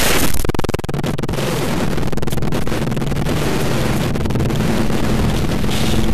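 Harsh experimental noise soundtrack: a loud burst of noise at the start, then dense crackling static over a steady low drone.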